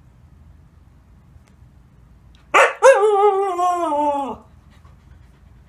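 Siberian husky giving a short sharp yelp about two and a half seconds in, then a long wavering howl-like call of about a second and a half that sags slightly in pitch at the end.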